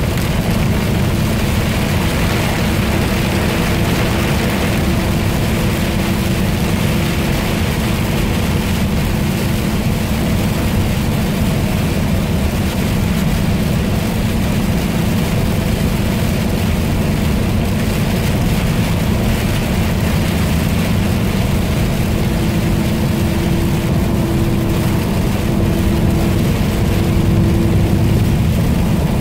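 Steady driving noise heard from inside a vehicle on a rain-soaked road: a low engine and road drone with a hiss of tyres on wet pavement and rain. A faint hum comes in for a few seconds early on and again in the last several seconds.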